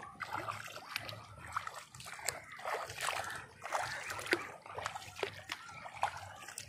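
Footsteps wading through shallow floodwater, splashing and sloshing irregularly with each step, about one or two a second.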